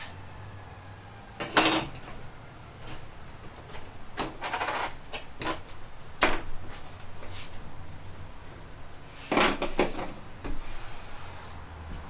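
Metal parts and tools clinking and knocking while a manual transmission's gear set is taken apart, in a string of separate clanks, the loudest about a second and a half in and again near nine and a half seconds.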